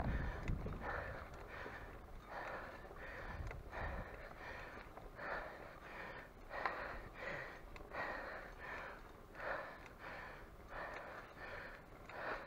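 A cyclist's hard, rhythmic breathing, about two breaths a second, from the effort of riding up a very steep hill.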